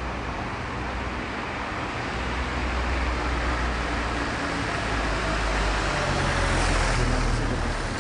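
Steady rumble of motor traffic with a low engine hum, slowly growing louder to a peak near the end.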